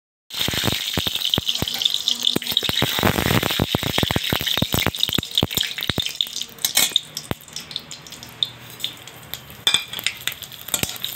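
Whole spices and a dried red chilli sizzling in hot oil in a kadai, with dense crackling and popping as they are tempered, stirred with a metal spatula. It starts abruptly and turns quieter about six seconds in, leaving scattered pops.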